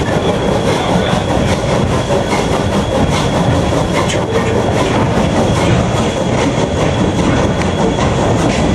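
A steam-hauled train's caboose rolling along the track, heard from on board: steady loud running noise of wheels on rails with a few faint clicks and a thin, steady high whine.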